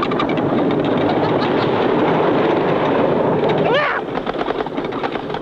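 Wooden roller coaster train clattering along its track with a dense rush of wheel noise. About four seconds in, a rider gives a sharply rising yell, and the noise drops to a lighter, rhythmic rattle.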